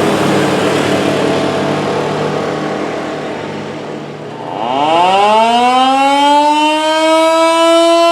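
A rushing noise, then about four and a half seconds in a 1926 Federal Electric Model 2-240 mechanical siren winds up. Its wail rises in pitch and levels off to a steady tone. The siren is running underpowered on 120 V instead of its rated 240 V.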